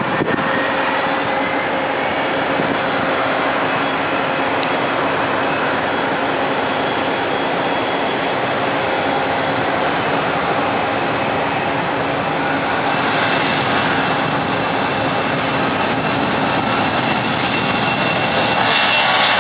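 Jet airliner's engines, a steady loud roar with faint whining tones running through it, getting a little louder about two-thirds of the way in and again near the end.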